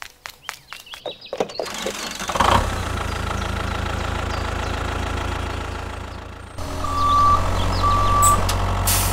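A series of sharp clicks, then a tractor engine starting up about two seconds in and running steadily. Near the end the engine comes back louder and a reversing beeper sounds twice as the tractor backs up.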